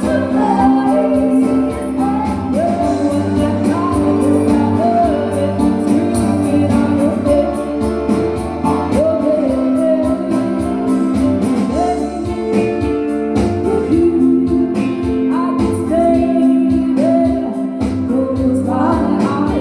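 Music: a song sung over guitar accompaniment.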